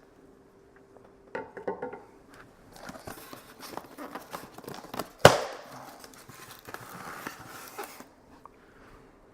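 Packaging being handled while unboxing a statue: rustling and crinkling, with a few light clicks early on and one sharp knock about five seconds in.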